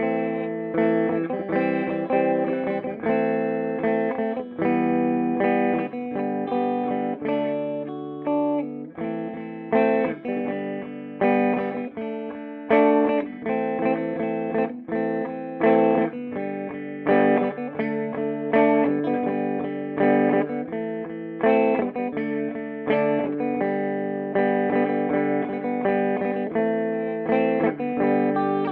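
Electric guitar played through a Peavey Bandit 112 combo amp on its clean channel: chords struck one after another at a fairly even pace, each left to ring.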